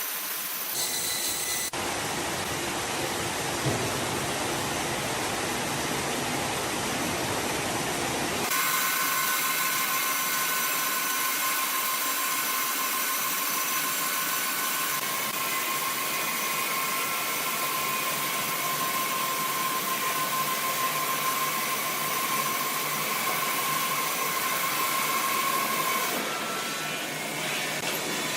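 Sawmill machinery running steadily. The sound changes abruptly about two seconds in and again about eight seconds in, and after that a steady whine runs over the noise.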